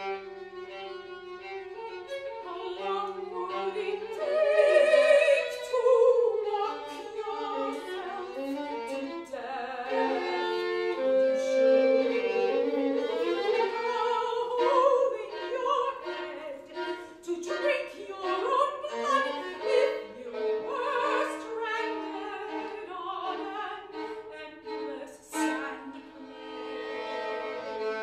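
Violin bowed in a contemporary classical piece, starting out of silence, with a woman's operatic voice singing along.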